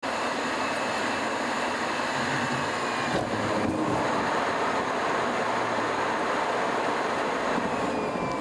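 Steady rumbling, rushing noise of a moving vehicle, at an even level throughout.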